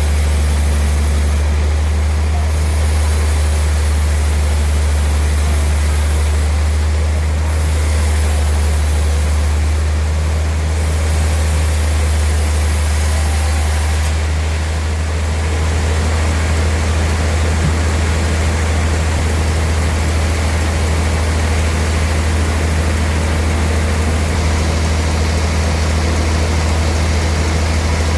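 Sawmill machinery running steadily: an engine-like drone with a strong low hum and a haze of noise above it. The high noise shifts a little about halfway through.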